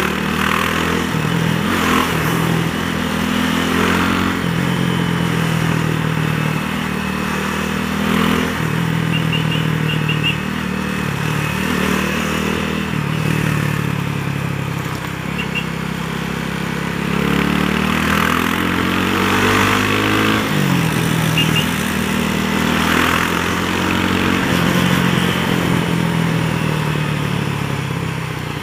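Honda CB300R single-cylinder motorcycle engine pulling through traffic, its pitch rising under throttle and dropping back at each gear change or roll-off, several times over. The longest climb comes about two-thirds through and ends in a sharp drop. Wind rushes over the microphone throughout.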